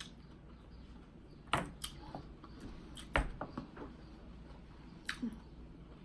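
Eating cantaloupe: a handful of short, sharp clicks and knocks, the loudest about three seconds in.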